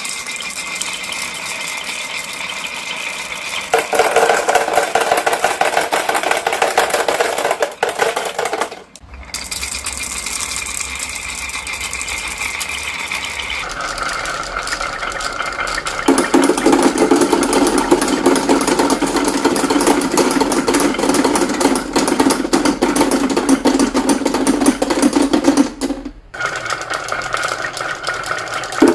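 Marbles rolling and clattering in quick succession along a toy marble-run track, a dense rattle over a steady whirr. It cuts off abruptly twice and starts again with a different tone.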